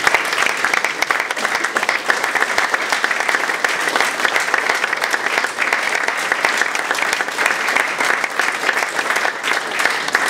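Audience of a few dozen people applauding steadily.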